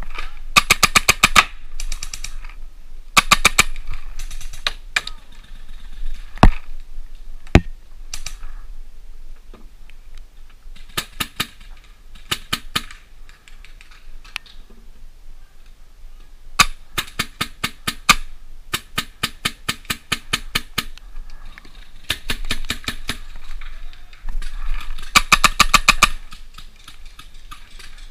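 Paintball markers firing in rapid strings of shots, about ten a second, in repeated bursts of a half second to two seconds. Two separate single sharp knocks stand out a little past six and seven seconds in.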